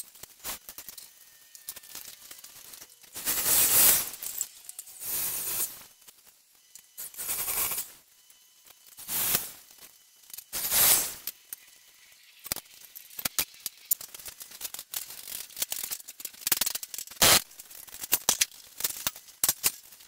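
Metalworking on a steel rail: several short bursts of harsh, hissing noise, each about half a second to a second and a half long, with many sharp metallic clicks in between.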